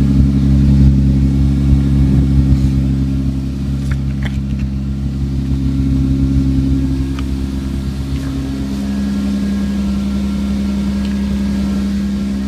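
1998 Toyota Sienna's 3.0-litre V6 running steadily, with a loud exhaust note from a leak at the muffler, exhaust escaping out of its side. The engine note shifts slightly in pitch about eight and a half seconds in.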